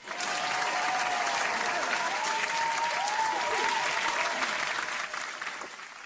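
Applause sound effect from a crowd, with a few rising and falling calls over it about two to four seconds in. It cuts in abruptly and cuts off just as sharply.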